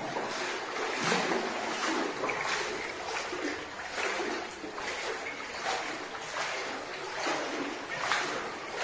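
Steady sloshing splashes, about two a second, of someone wading through floodwater that covers a house's floors.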